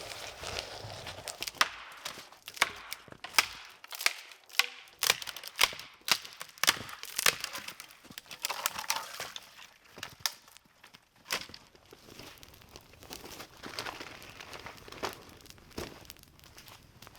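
Dry sticks and branches being snapped for firewood: a rapid, irregular run of sharp cracks over most of the first ten seconds, then quieter scattered crunching and snapping.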